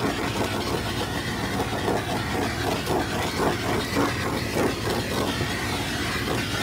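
Handheld butane torch flame hissing steadily as it is swept over wet acrylic paint to pop air bubbles.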